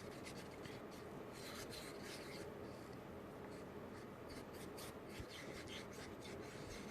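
Resin being stirred in a mixing cup, the stir stick scraping and rubbing faintly against the cup in irregular strokes as pigment is mixed in.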